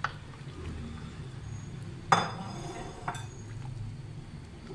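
Wooden-handled metal spoon clinking against a glass bowl and a large metal pot as ground rice is scraped into simmering milk and stirred. A light click at the start, one loud ringing clink about two seconds in, and a lighter click a second later.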